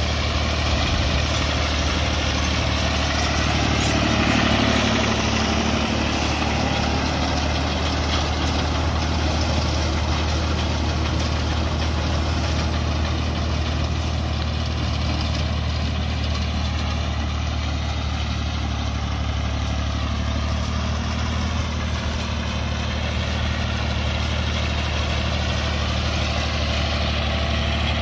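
Al-Ghazi tractor's diesel engine running steadily under load as it drives a front-mounted reaper binder cutting standing wheat.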